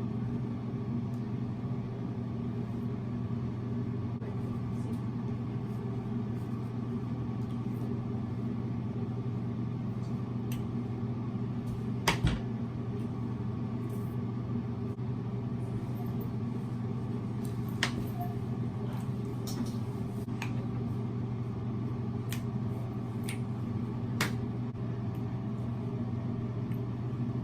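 A steady low hum with a few sharp clicks and knocks over it, the loudest about twelve seconds in.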